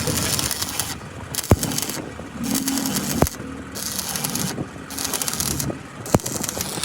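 Repeated scraping strokes, in bursts of about a second each, broken by three sharp knocks.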